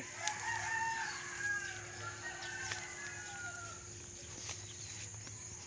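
Rooster crowing: one long call lasting about three seconds, starting just after the beginning.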